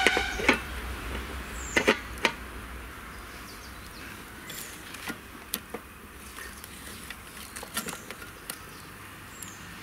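Firewood burning in a clay village stove under a lidded kadai: a few sharp clicks and knocks in the first two and a half seconds, then a steady faint hiss with scattered single snaps.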